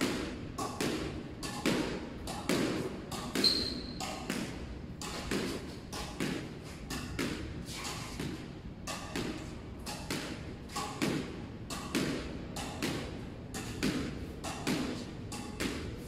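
Squash ball being volleyed against a concrete wall: a quick, regular run of sharp hits, racket strike and wall strike in turn, about three a second. A brief high squeak sounds once, about three and a half seconds in.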